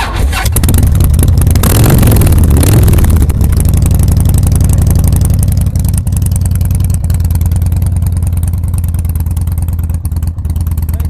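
V-twin cruiser motorcycle engine, revved through the first three seconds or so, then idling steadily.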